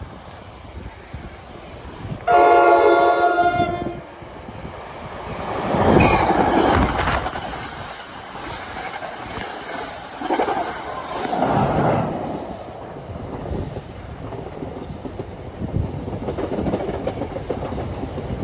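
Commuter train sounding one loud horn blast, a chord of several steady tones about two seconds in, then passing close by, its wheels rumbling and clacking over the rail joints as the coaches go past.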